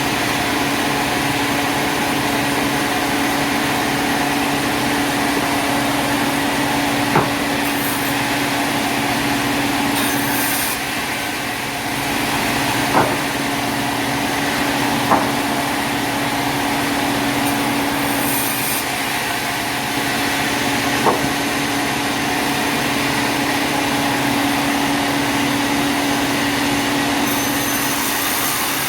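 Sawmill machinery running steadily with a constant hum, with a few sharp knocks about 7, 13, 15 and 21 seconds in.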